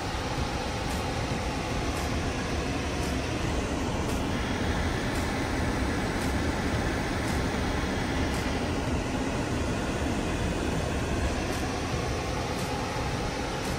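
A BMW's engine idling cold at about 1,000 rpm, heard from inside the cabin as a steady low hum under an even rush of noise.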